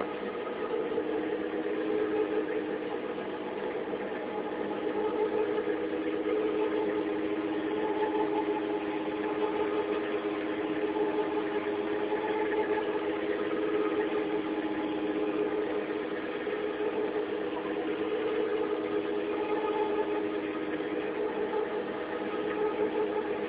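A boat's engine running with a steady, even drone, heard from inside the cabin.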